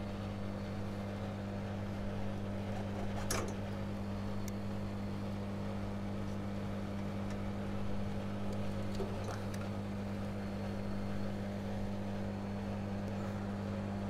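Steady low machine hum, with a couple of faint clicks as pliers pull the cable connectors off an air-conditioner compressor's terminals, about 3 and 9 seconds in.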